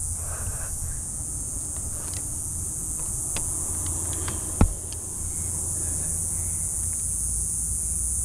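A steady high-pitched buzz of insects over a low rumble, with light clicks of a compound bow and arrows being handled. The loudest sound is a single sharp knock about four and a half seconds in.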